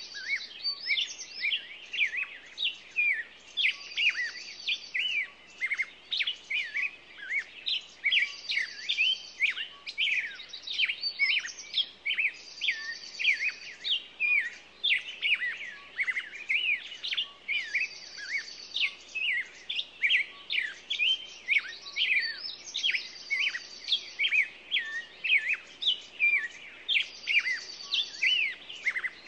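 Several small songbirds chirping continuously in quick, overlapping calls, with a short high trill repeated every four to five seconds.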